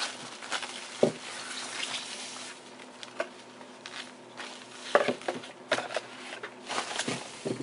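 Thin plastic packaging bag rustling as it is pulled away, then a few light knocks and clicks as a small plastic camera and its cord are handled and set down on a tabletop.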